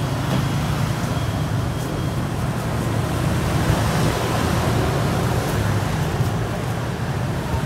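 Steady low rumble of background noise, with a few faint clicks as a knife is worked into a spiky durian husk.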